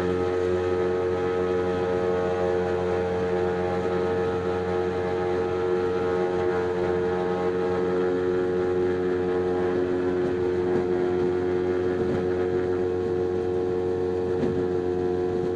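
Lake amphibian's pylon-mounted pusher engine and propeller running steadily at an even pitch, heard from inside the cabin while the flying-boat hull runs through the water.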